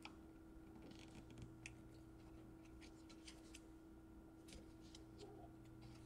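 Near silence: faint, scattered light clicks from a small screwdriver and fingers working on parts inside an opened laptop, over a faint steady hum.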